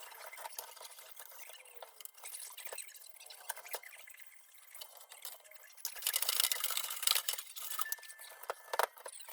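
Handling noise: rubbing and rustling with scattered light clicks, and a louder stretch of rubbing about six seconds in.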